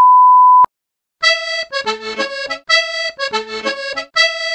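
A loud, pure beep tone lasting just over half a second, cut off abruptly, then a brief dead silence and a short music phrase with a reedy, accordion-like sound, repeated over and over.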